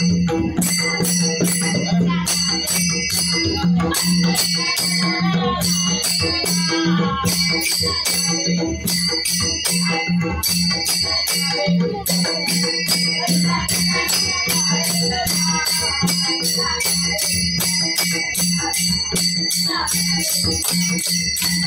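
Warkari bhajan music: small brass hand cymbals (taal) clashing in a fast, even rhythm over a two-headed barrel drum (mridang), with the cymbals' ringing held steady throughout and women's voices singing in places.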